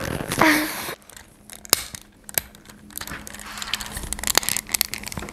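Plastic parts of a Transformers Studio Series KSI Sentry figure clicking and rubbing as they are pushed and folded into place by hand during transformation. Sharp clicks come scattered through the handling and grow more frequent near the end.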